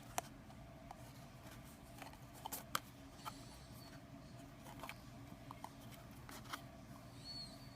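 Scattered light clicks and taps of a cardboard box being handled, the loudest a couple of knocks about two and a half seconds in.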